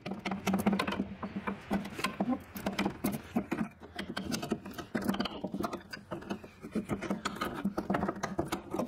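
Metal rod scraping, grinding and clinking against the dented metal blade-shaft housing of a DR Field and Brush mower deck as the housing is levered back into shape: a rapid, irregular run of scrapes and clicks.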